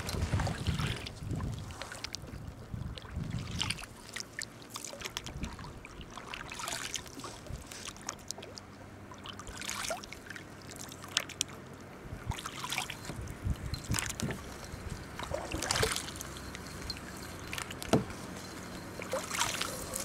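Kayak paddle strokes: the double-bladed paddle dipping and splashing, water dripping off the blades in irregular splashes. A single sharp knock near the end.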